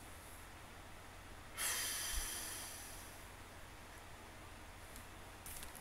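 A person's breath blown out close to the microphone, starting suddenly about a second and a half in and fading over about a second and a half, over a low steady hum; a few faint clicks near the end.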